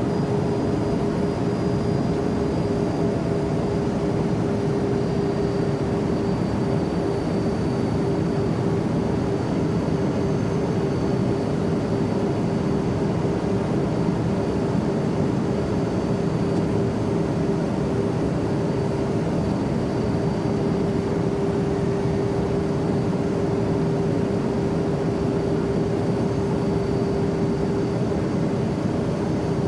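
Steady in-flight airplane cabin drone: an even rush of engine and airflow noise with a constant low hum running through it, unchanging throughout.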